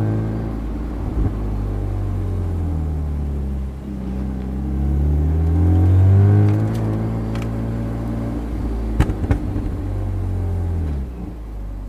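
Supercharged BMW Z4 M Roadster's straight-six running on the road through its exhaust with DMH electric cutouts fitted ahead of the mufflers. The engine note rises as the car accelerates about four seconds in, then eases off and holds steady, with a few sharp clicks about nine seconds in.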